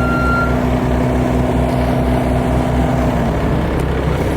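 A heavy engine running steadily with a low, even throb. About three seconds in, its note shifts and the throb smooths out.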